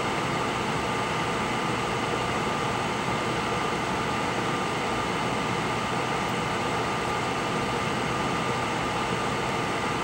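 Steady background hiss and hum with a thin constant whine, unchanging throughout, like a fan or air-moving machine running on the bench.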